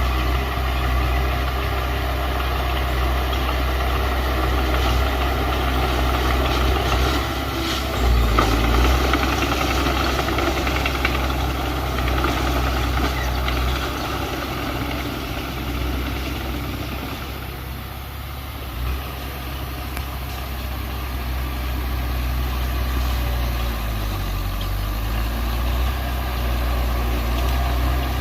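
Heavy diesel earthmoving machinery running steadily, with the engine swelling briefly about eight seconds in and dipping in pitch for a moment near the end.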